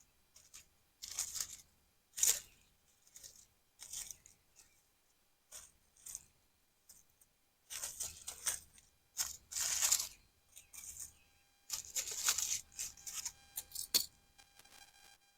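Metal tongs clicking and scraping in short, irregular bursts as jalapeno poppers are turned over on the campfire coals.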